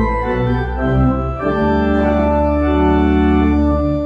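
Church organ playing sustained chords over a deep pedal bass note, the harmony changing every half second or so at first, then held longer.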